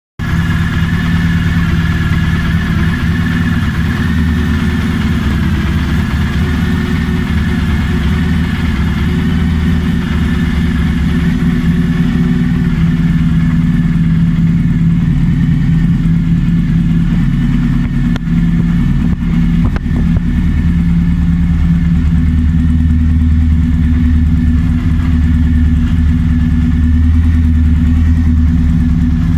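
Honda ST1100's 1100 cc V4 engine idling steadily through a pair of aftermarket chrome exhaust silencers.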